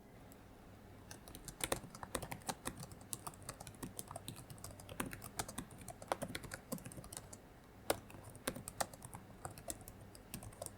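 Typing on a laptop keyboard: a run of quick, irregular keystrokes that starts about a second in, over a faint low hum.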